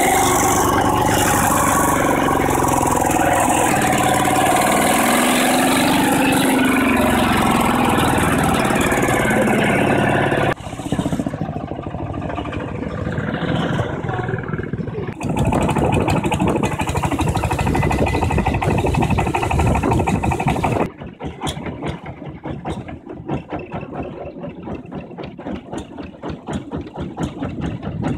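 Exposed single-cylinder diesel engine of the walking-tractor type, driving a small truck, running loud and steady. After a break it runs loud again, and in the last seconds a quieter engine puts along with a quick, even beat.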